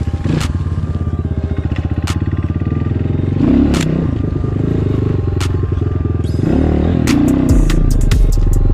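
Enduro dirt bike engine running at low revs with an even, pulsing exhaust beat, picking up briefly twice as the throttle is opened, with a few sharp knocks over it.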